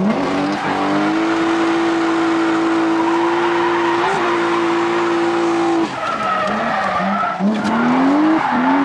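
Drift car's engine, heard from inside the cabin, revving up and held at steady high revs while the tyres skid and hiss across the track surface. About six seconds in the revs drop, then climb again in several short pulls as the tyres keep sliding.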